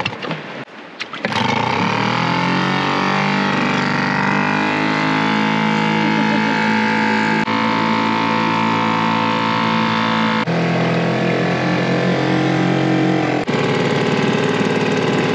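Small dinghy outboard motor pull-started, catching about a second in and quickly settling from a higher rev into steady running.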